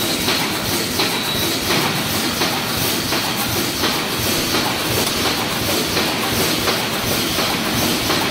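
DAPU automatic wire mesh welding machine running, with a steady mechanical clatter and repeated knocks.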